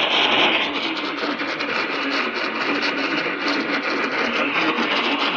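Radio receiver hiss and static with no clear programme audio, a steady noisy rush.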